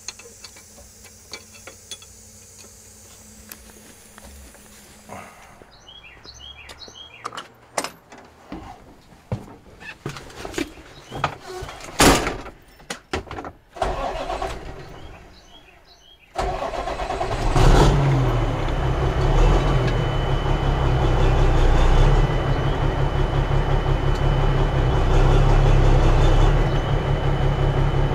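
Marmon 57P semi truck's diesel engine starting suddenly about halfway through and then idling steadily with a low hum. Before it starts there are scattered clicks and knocks, with one sharp crack.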